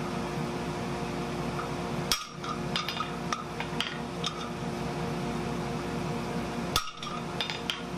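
Hand hammer striking a guillotine fullering tool that holds a hot steel leaf blank on an anvil, fullering scallops into the leaf's edge: two sharp blows, about two seconds in and near the end. Each blow is followed by a few lighter metallic clinks, over a steady hum.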